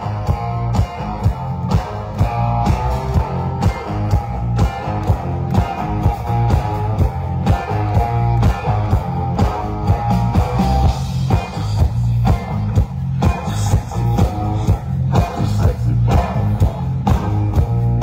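Live rock band playing through a concert PA: electric guitars over bass and drums, with a steady, heavy beat.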